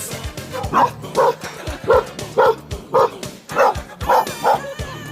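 A puppy barking, about eight short yapping barks in quick succession starting about a second in.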